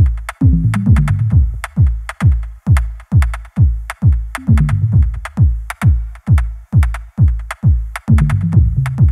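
Electronic background music with a steady kick-drum beat, about two beats a second, over a bass line.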